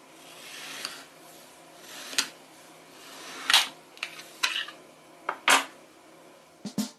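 Felt-tip marker rubbing back and forth on paper in swelling, scratchy swishes, broken by several sharp ticks and taps, the loudest about three and a half and five and a half seconds in.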